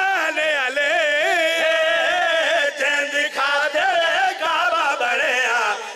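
Men's voices singing a qaseeda together, unaccompanied, in long drawn-out lines that waver and glide in pitch.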